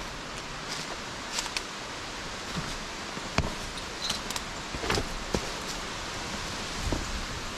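Steady rush of a mountain stream's running water, with a few irregular sharp clicks and knocks scattered through it.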